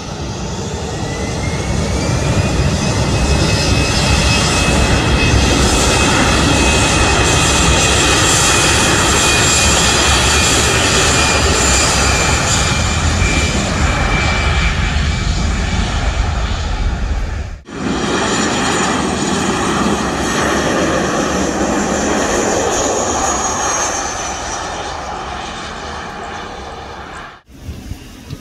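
Airliner's engines running loud as the plane passes, a high whine gliding slowly down over a heavy rumble. The sound cuts off abruptly about two-thirds of the way in, starts again just as loud, then fades before cutting off a second before the end.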